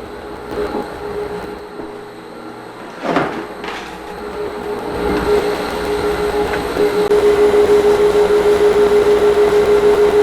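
Random orbit sander on a wood floor: two short knocks about three seconds in, then the sander comes up to speed and runs with a steady hum that pulses regularly.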